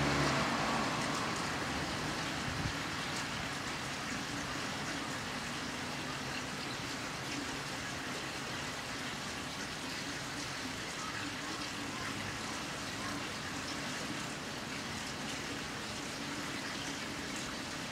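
A train's low rumble fading away over the first two seconds, then a steady, even hiss with no distinct events.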